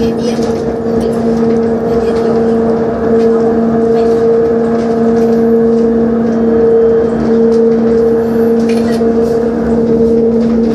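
Funicular car running along its inclined rail track, heard from inside the car: a steady two-tone hum from the drive over a running rumble, with faint irregular clicks.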